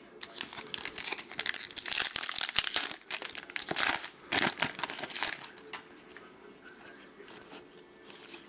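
Trading card pack wrapper being torn open and crinkled by hand: dense crackling rustles for about the first five seconds, then only faint rustling.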